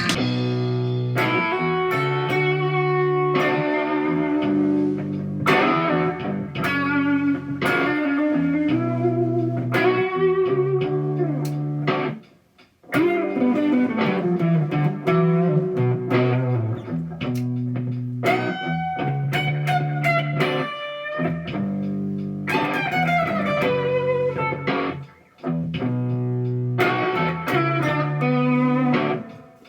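Electric guitar played through the Noise Therapy FX Insomnia distortion pedal, held overdriven notes and chords in a heavy riff. The playing breaks off briefly about 12 and 25 seconds in.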